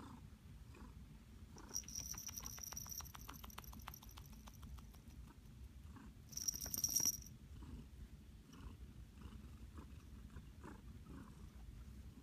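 Calico cat purring in a steady low rumble while being stroked. Quick scratchy rustling and clicking of bedding or collar comes through from about two seconds in, with a short louder burst about six and a half seconds in.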